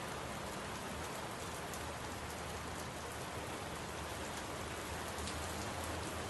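Steady rain falling: an even hiss with faint scattered drop ticks, with no thunder rumble heard.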